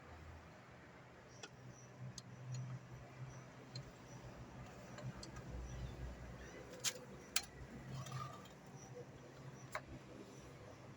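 Scattered faint clicks and taps, with two sharper clicks about seven seconds in and another near ten seconds, over a low hum.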